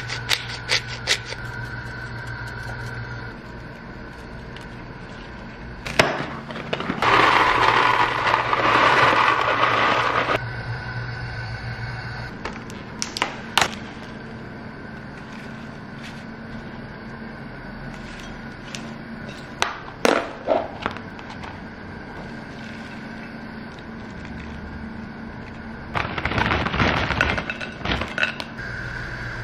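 Kitchen plating sounds: scattered sharp clicks of ceramic bowls and utensils knocking on a stone countertop, and a loud stretch of noise in the first third. Near the end, croutons are shaken out of a bag and patter onto a salad in a ceramic bowl. A steady low hum sits under the start and the end.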